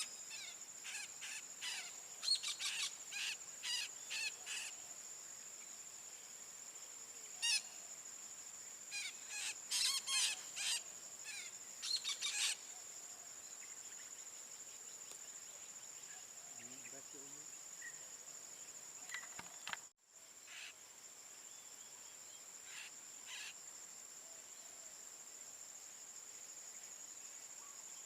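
Parakeet calls: short, harsh and repeated in quick clusters through the first dozen seconds, then a few more later, over a steady high-pitched insect drone.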